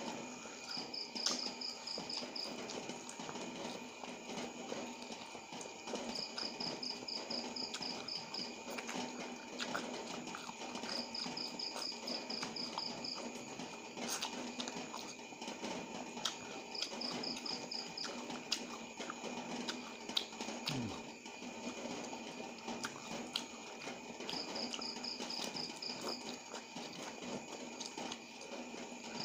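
Close mouth sounds of a person eating noodles and fresh tamarind leaves: irregular chewing clicks and smacks. An insect chirps in short, high pulsed trills every few seconds.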